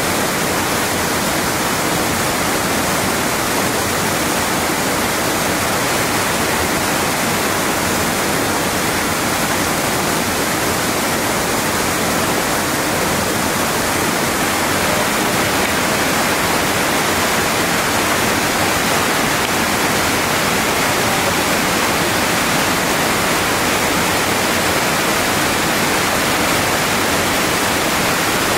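A waterfall's steady, loud rush of water pouring and splashing down a rock face.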